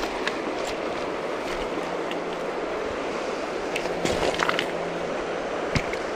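Steady rushing of river current along a rocky bank, with scattered light clicks and knocks close to the microphone.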